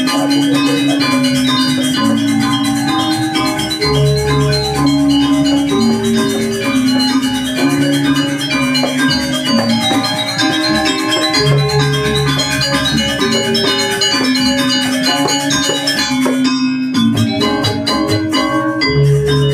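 Balinese gamelan gong ensemble playing: bronze metallophones ring out a busy, repeating melody, with a deep gong stroke about every seven or eight seconds. Near the end the ringing thins for a few seconds to sharp, rapid rhythmic strokes.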